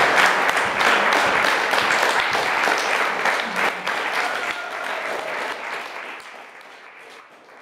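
Audience applauding, the clapping fading out over the last couple of seconds.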